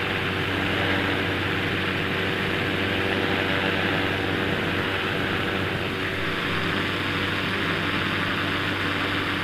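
Quicksilver ultralight's engine and propeller running steadily at cruise in flight, a constant drone mixed with the hiss of wind rush.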